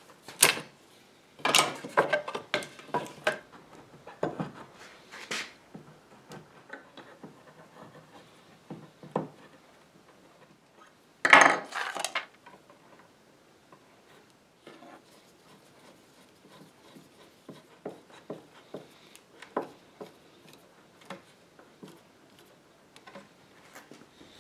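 A flat metal blade scraping along an old oak table molding in short, rough strokes during the first few seconds, with a louder scrape about eleven seconds in. After that come only faint ticks and rubs of hands handling the wood.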